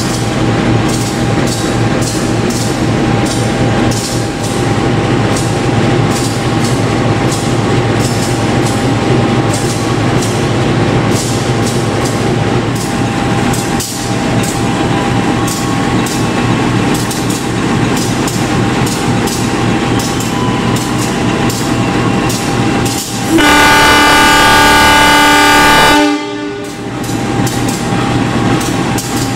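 Diesel-electric locomotive of a KAI passenger train idling loud and steady beside the platform. About three-quarters of the way through, its horn gives one long blast of several pitches lasting about three seconds, the departure signal.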